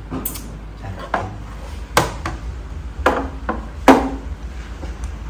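Five sharp knocks about a second apart, each with a brief ringing tone, as of something hard being struck or set down; the last two are the loudest.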